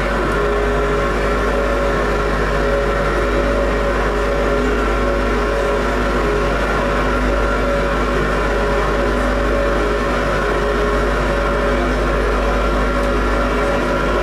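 Harsh noise music played on electronics and effects pedals: a loud, unbroken wall of distorted noise with several held droning tones and a heavy low rumble underneath.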